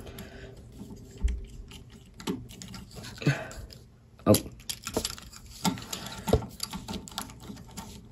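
Plastic Transformers action figure being handled and posed: its plastic parts click and knock against each other irregularly, about once a second.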